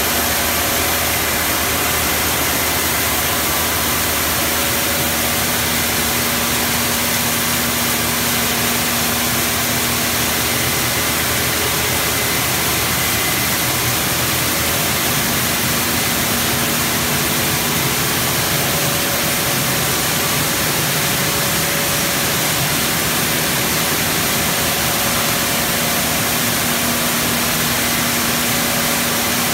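Coffee dry-mill machinery running steadily as it mills parchment coffee: a loud, even mechanical noise with a few faint steady hums that come and go.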